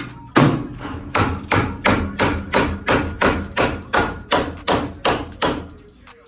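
Steady hammer blows on the sheet-metal front end of a Fox-body Mustang, about three sharp strikes a second, each with a short metallic ring, growing a little weaker near the end.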